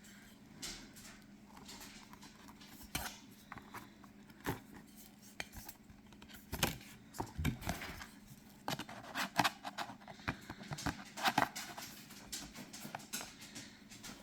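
Small objects being handled on a tabletop: a scatter of light clicks, taps and brief clinks, busier in the second half.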